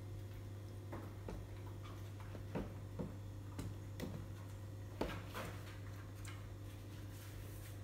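About a dozen light, irregular clicks and taps, most of them in the middle of the stretch, over a steady low hum.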